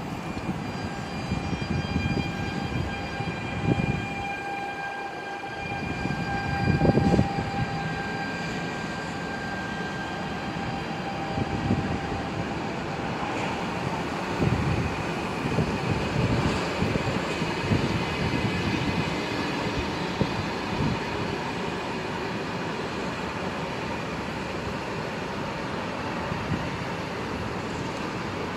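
A PKP Intercity Stadler FLIRT (ED160) electric multiple unit rolling past, its wheels rumbling on the rails. A steady whine fades out after about ten seconds, and there is a louder rush about seven seconds in.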